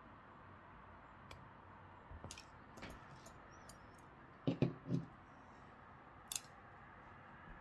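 Steel surgical instruments being handled on a silicone suture practice pad: scattered small sharp clicks, with three louder, duller knocks in quick succession a little past halfway.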